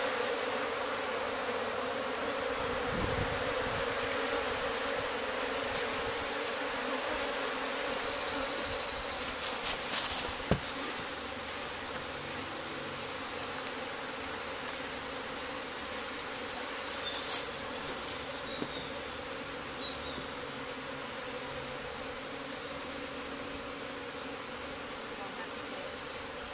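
Dense, steady buzzing of many honey bees flying around an open hive, a colony stirred up by the inspection. A few brief knocks come through about ten and again about seventeen seconds in.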